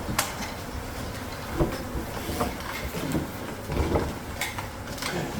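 Scattered knocks and scrapes of hands and tools working on hive comb in a roof space, with a sharp knock just after the start, over a low rumble.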